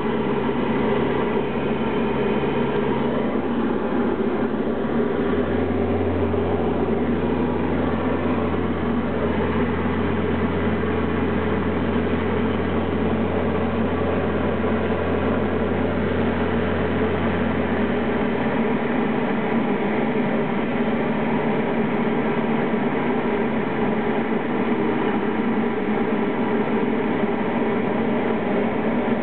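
Single-engine light aircraft's piston engine and propeller running steadily, heard from inside the cockpit. A deeper low hum joins in about five seconds in and drops away about eighteen seconds in.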